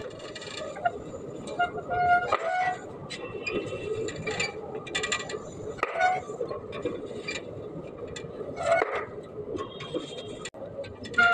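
Bicycle tyre rolling over a row of water balloons, bursting them one after another with sharp pops and splashes, the loudest about two, six and nine seconds in. Short squeaky tones come as the rubber balloons are squeezed under the tyre.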